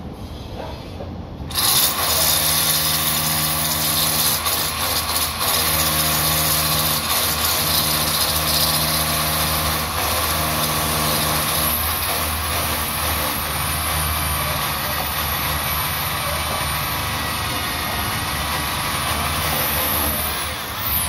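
A power tool starts about a second and a half in and runs in several short stretches of a second or two. It then runs steadily, with a constant motor tone under a loud hiss.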